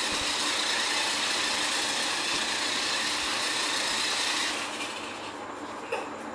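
Radio-controlled toy monster truck driving, its small electric motor and gears whirring steadily, then stopping about four and a half seconds in.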